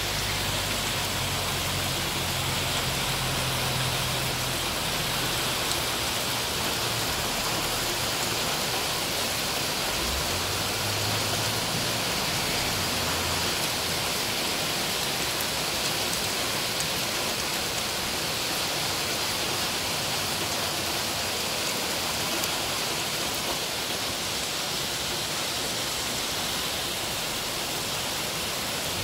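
Heavy rain mixed with hail pelting a paved street and parked cars: a steady, dense hiss that does not let up.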